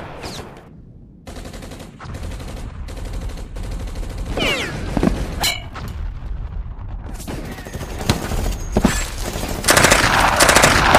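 Battle sound effects of rapid gunfire, volleys of rifle and machine-gun shots, with a few whistling passes around the middle. The firing turns much louder and denser near the end.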